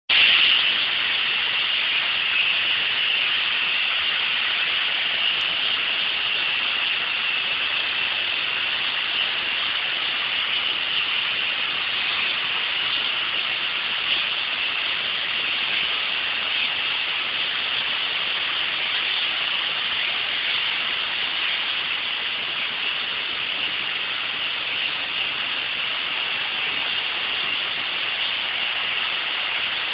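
Steady, loud hiss of compressed air from a pneumatic vacuum stone lifter, unbroken and even throughout.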